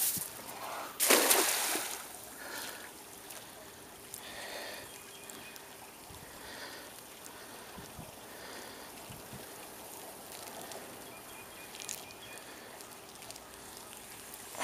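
A thrown cast net hitting the water, one loud splash about a second in, then low trickling water as the net sinks.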